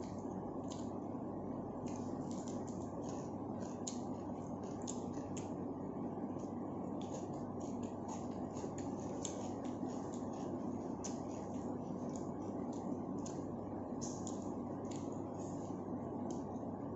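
A person eating chicken biryani close to the microphone: many short, irregular clicks and smacks of chewing and handling the food, over a steady low hum.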